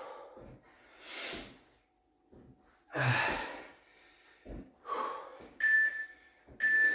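A man breathing hard after high-intensity exercise, letting out heavy puffs of breath about every two seconds as he recovers. Near the end an interval timer beeps twice, a second apart, counting down the last seconds of the rest period.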